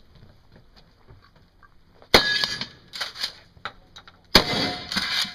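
Gunshots on a shooting range: a loud shot about two seconds in that rings on briefly, a few smaller metallic clangs around three seconds, and another loud shot or quick volley near the end. The ringing clangs are typical of steel targets being hit.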